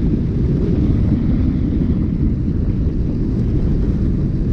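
Wind buffeting the microphone of a bicycle-mounted action camera while riding: a steady, loud low rumble.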